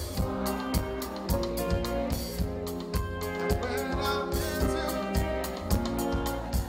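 Live band playing with a steady beat: bass guitar, keyboards and drum kit.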